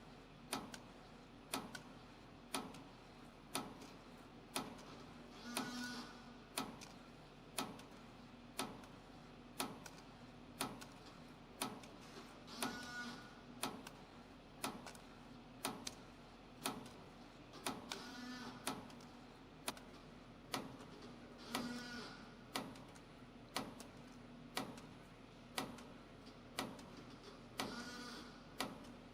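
CNC spring coiling machine (YHM CF-310) forming compression springs from 0.6 mm galvanized wire: a sharp click about once a second over a steady hum, with a short rattling burst every five or six seconds.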